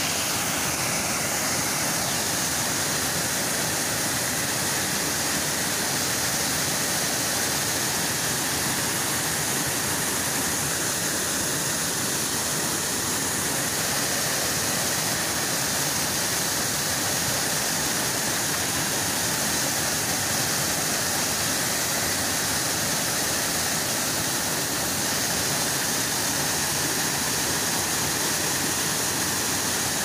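Waterfall: water pouring over rocks in a steady rush.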